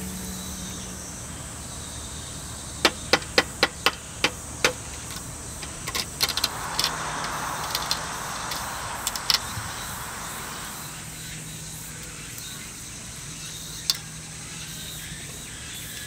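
Hard-boiled egg being tapped on a hard surface to crack its shell: a quick run of about seven sharp taps, then a few scattered taps and a soft hiss lasting several seconds.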